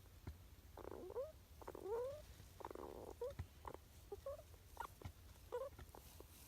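Sleeping Richardson's ground squirrel making its sleep-talk noises: several short squeaks that glide upward in pitch, mixed with a few longer breathy, snore-like sounds.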